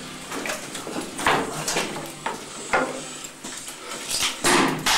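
Irregular knocks, clatter and scuffing of players moving with their gear in a cramped space, with a louder rustling burst near the end.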